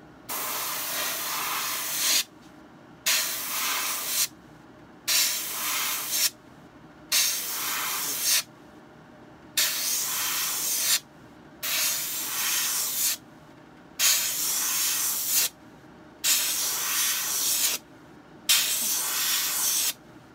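Airbrush spraying Fiebing's leather dye onto a shoe's leather sole: nine bursts of hiss, each about a second and a half, with short pauses between.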